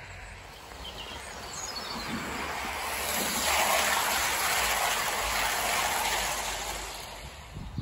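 OO gauge model train running past close by on garden-railway track, the rattle and rush of its wheels on the rails. It swells from about a second in, is loudest in the middle, and fades near the end.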